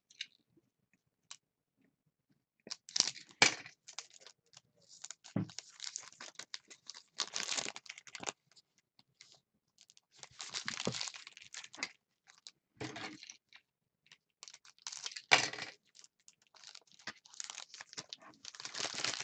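A foil pack of Panini Totally Certified basketball cards being torn open and its cards handled: irregular crinkling and rustling of the wrapper and cards, with a few sharper clicks about three seconds in and again around fifteen seconds.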